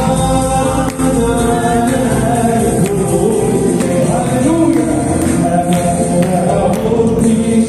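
Live Arabic Christian worship song: a man sings the lead into a microphone over a band with electric bass guitar and regular percussion hits.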